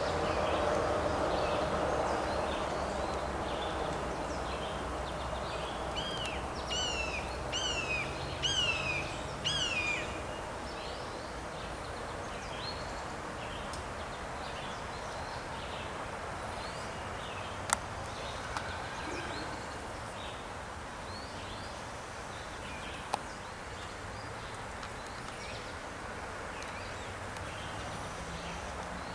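Several wild birds singing and calling, with one louder bird giving a run of downward-slurred whistled notes from about six to ten seconds in. A single sharp click comes about eighteen seconds in, and a faint low drone fades out over the first few seconds.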